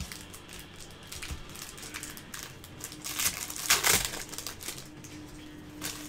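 Plastic trading-card pack wrapper crinkling as gloved hands handle and open it, a run of short crackles that grows loudest about two-thirds of the way in.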